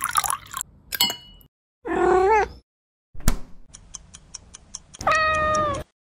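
A cat meowing twice: a short, bending meow about two seconds in and a longer, steadier one near the end. Between them a sharp click, then a fast clock ticking at about five ticks a second.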